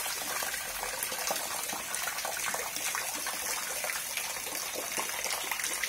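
Steady rain, with a stream of rainwater pouring and splashing into a basin already full of water and drops spattering on the puddled ground: a dense, even hiss with many small splashes.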